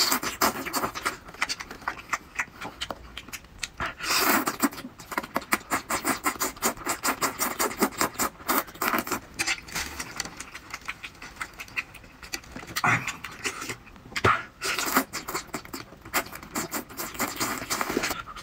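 Close-up wet slurping and chewing of spicy octopus tentacles, with dense, irregular mouth smacks and sucking noises and louder bursts every few seconds.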